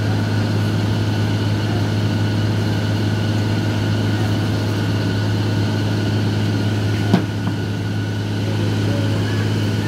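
Diesel engine of a JCB JS210LC tracked excavator idling steadily, with a single sharp knock about seven seconds in.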